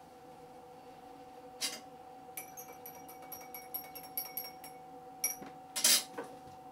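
Spoon stirring in a drinking glass, clinking quickly against it with a ringing tone for a couple of seconds, over a steady hum. A louder short clatter comes near the end.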